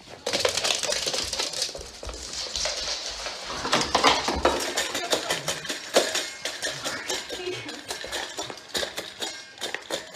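Stainless-steel dog bowl clattering and clinking on a wooden floor as a dog eats from it, with many irregular sharp clicks and knocks.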